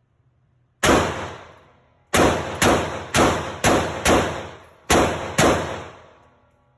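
Mini Draco AK pistol (7.62×39) firing eight single shots, each with a long echoing tail. There is one shot about a second in, a pause, a quick string of five, then two more near the end. The last shot empties the magazine.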